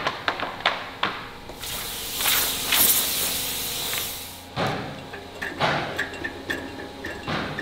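Wooden drawer panels knocking and clacking as they are handled and laid out on a press bed. A loud hiss runs for about three seconds in the middle, followed by a few more knocks.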